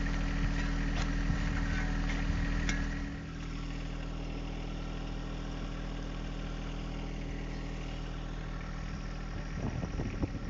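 John Deere 1025R compact tractor's three-cylinder diesel idling steadily. A few sharp scrapes and clicks of a shovel in dirt and stones come over the first three seconds.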